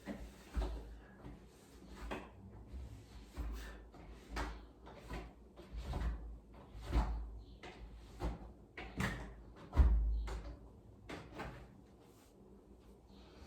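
Irregular household clatter: many short knocks and clicks of containers and plastic parts being handled and set down in a refrigerator, with one louder thump about ten seconds in.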